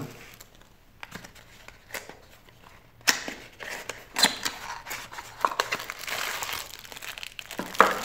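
Packaging being handled: a small cardboard box opened by its flaps, then a clear plastic parts bag crinkling. A few light clicks at first, then from about three seconds in, sharp snaps and steady crinkling rustle.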